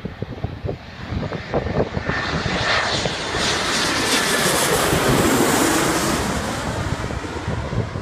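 Embraer ERJ-195 jet airliner on final approach passing low overhead, the sound of its twin turbofans swelling to a peak around the middle and dropping in pitch as it goes past. Wind buffets the microphone at the start and near the end.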